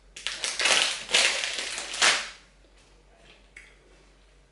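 A crunchy snack bitten and chewed close to the microphone: loud crackling crunches for about two seconds, then only a few faint clicks.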